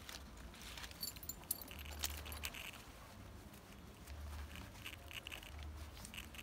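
Small metal padlocks and keys clinking and jangling together as a cloth-wrapped bundle of them is picked up and handled: scattered light clinks, thickest in the first half, over a few dull low rumbles.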